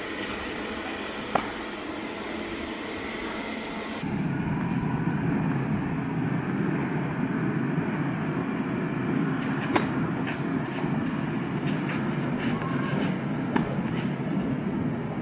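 Steady low rumbling noise that grows louder and deeper about four seconds in, with a few sharp knocks of a tennis ball being struck.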